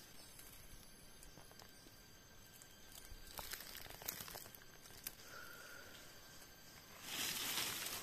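Dry leaf litter and brush rustling and crackling as someone moves through forest undergrowth, with a few faint crackles in the middle and a louder rustle near the end.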